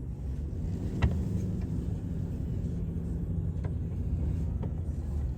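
Storm wind buffeting the microphone in a steady low rumble over heavy surf, with a sharp knock about a second in and a couple of fainter clicks later.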